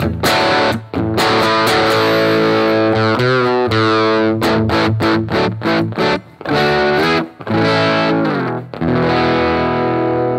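2013 Rickenbacker 330 electric guitar with toaster pickups, on the bridge pickup, driven through stacked Nobels ODR-1 and EarthQuaker Devices Plumes overdrives, playing a distorted chord riff in short stabs with brief stops between them, ending on a chord left to ring near the end. The tone is tight and bright, with not a lot of low end.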